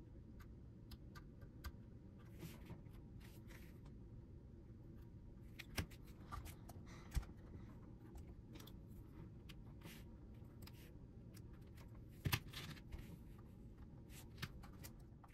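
Faint scratching and light taps of masking tape being trimmed with a hobby knife and pressed onto a plastic model locomotive, over a low steady room hum, with a few sharper ticks about six, seven and twelve seconds in.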